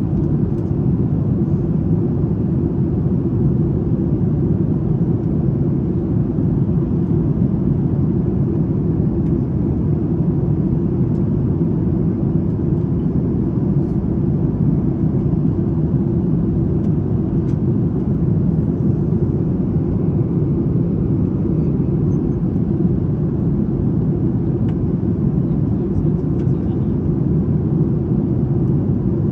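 Steady, even roar of a Boeing 737 MAX 9 in flight, heard from inside the cabin: engine and airflow noise, strongest low down and unchanging in level.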